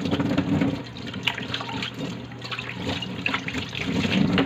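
Cornstarch-thickened escabeche sauce simmering in a wok over a gas burner: scattered bubbling pops over a steady low hum.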